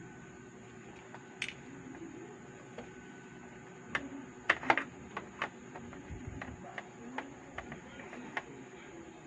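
Scattered small clicks and taps of a screwdriver against the plastic hull and gearbox parts of an RC tank as the gear motor is taken out. There is a quick cluster of sharper clicks about four and a half seconds in, followed by lighter ticks.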